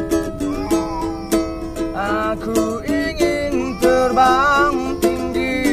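Kentrung, a small four-string ukulele, strummed in a steady rhythm, with a voice singing a wavering melody over it from about two seconds in.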